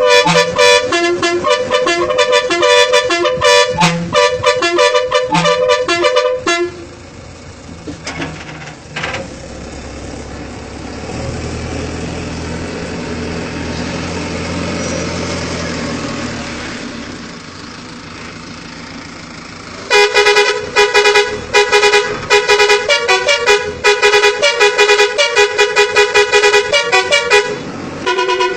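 A Kerala tourist bus's musical air horn plays a tune of quick, high notes for about six seconds. It falls away to a quieter stretch of about thirteen seconds with a low steady hum, then comes back with more quick horn notes for the last eight seconds or so.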